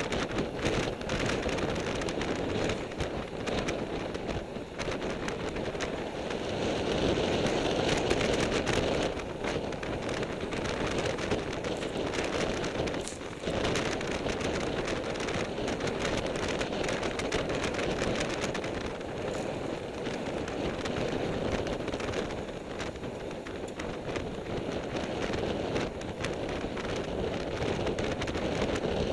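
Wind rushing over the microphone of a camera on a road bike ridden at speed, a steady rush with frequent crackles, over the rumble of the tyres on tarmac.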